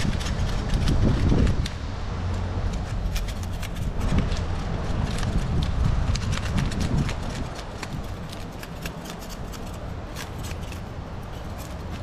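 Knife scraping the scales off a tilapia on a rock: a quick, irregular run of crisp scratchy strokes, several a second.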